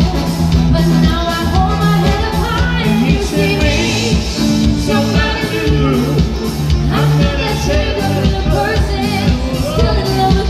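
A young woman singing a song into a microphone over live keyboard accompaniment with a steady drum beat and bass line.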